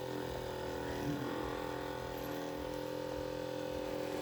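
Electric massager motor running with a steady hum.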